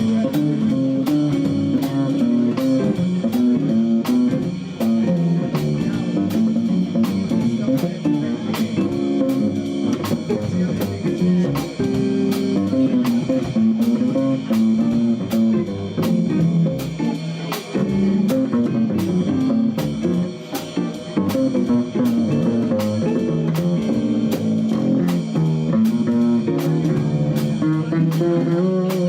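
Live jazz combo playing: guitar and double bass over a steady beat on drums and percussion.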